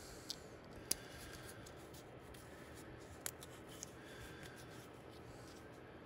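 Aluminum ducting tape being handled and pressed into place with the fingers: faint crinkling and rubbing, with four sharp little clicks, the loudest about a second in.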